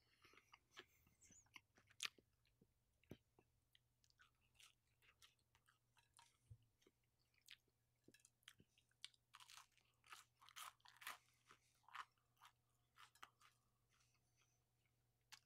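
Close-miked chewing of crunchy pizza: soft, irregular crunches and mouth clicks, with a run of louder crunches about two-thirds of the way through.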